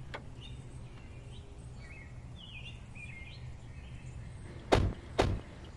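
Two car doors shut about half a second apart near the end. Birds chirp faintly throughout.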